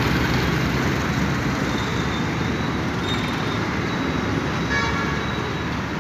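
Steady road traffic at a busy city junction: engines and tyres running together. Near the end a vehicle horn gives one short toot.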